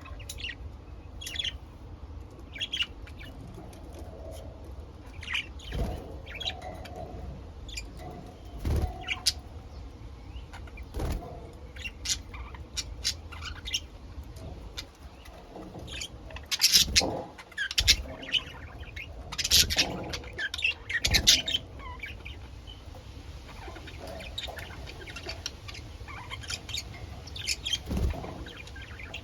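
Pet budgerigars chirping and chattering in quick, short, sharp calls, busiest and loudest in the middle stretch, over a low steady background hum.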